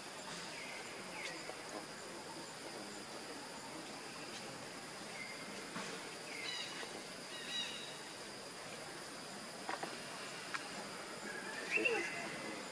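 Steady drone of forest insects with scattered short bird chirps. Near the end, a short, louder rising call stands out.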